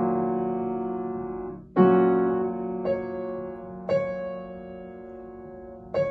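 Upright piano played slowly: full chords struck one after another about a second or two apart, each left ringing and fading before the next.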